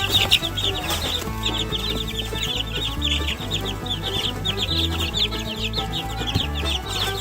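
A brood of two-week-old Barred Rock chicks peeping rapidly and continuously, many short falling peeps overlapping. They are excited, competing over cooked egg.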